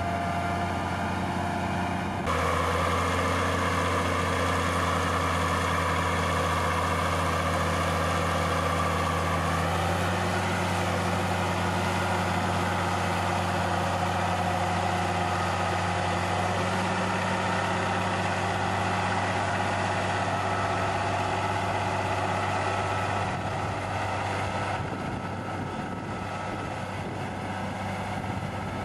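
Tractor diesel engine running steadily. About two seconds in it steps up suddenly in pitch and loudness, then settles and shifts pitch a couple more times, easing slightly near the end, as the load on it changes.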